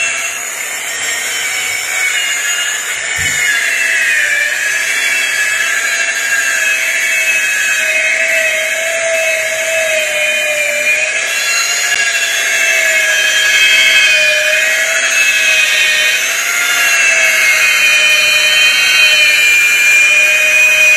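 Electric rotary buffer running with a compound-loaded pad pressed on a wooden rifle stock, cutting out sanding scratches. Its motor whine is steady, with a pitch that wavers up and down as the pad is worked along the wood.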